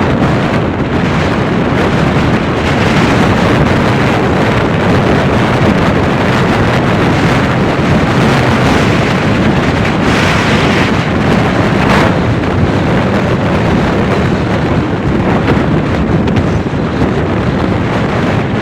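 Strong hurricane wind buffeting the microphone: loud, steady wind noise that swells in a gust about ten seconds in.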